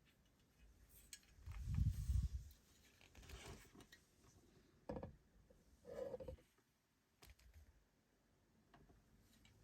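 Faint handling sounds of an unboxing: irregular rustles and light clicks, with low knocks loudest about two seconds in and smaller bursts around the middle.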